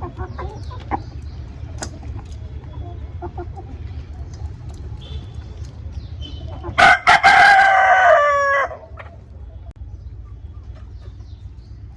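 A rooster crows once, about two seconds long, a little past the middle, its call falling in pitch at the end. Chickens cluck softly around it.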